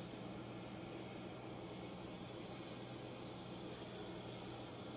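Steady hiss of machinery with a low, even hum underneath, unchanging throughout: ambient flightline noise around a parked aircraft during cargo loading.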